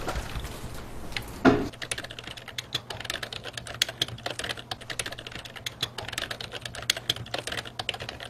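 Fast, irregular typing on a computer keyboard, a steady patter of key clicks, preceded about one and a half seconds in by a single short thud.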